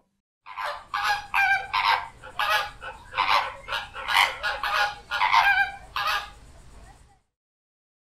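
Flamingo calling: a rapid series of about a dozen short, goose-like calls over some six seconds, trailing off faintly near the end.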